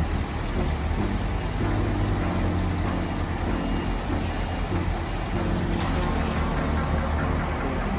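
A heavy engine running steadily, its pitch shifting slightly now and then, with two short hisses about four and six seconds in.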